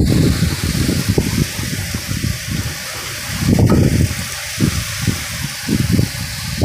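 Heavy storm rain pouring with a steady hiss, while strong wind gusts buffet the microphone in loud, irregular rumbles.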